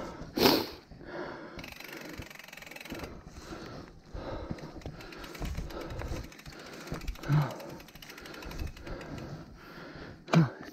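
Mountain bike rolling along a dry dirt singletrack: tyres crunching over earth and dead leaves while the bike rattles over the bumps, with a few louder knocks, the loudest about half a second in.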